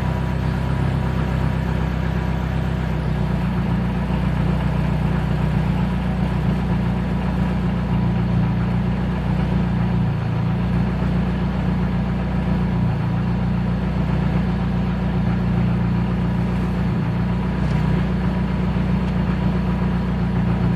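Hyundai Tiburon engine idling steadily with third gear selected and the clutch fully let out, its note unchanged because the gear's teeth have sheared off and it no longer engages.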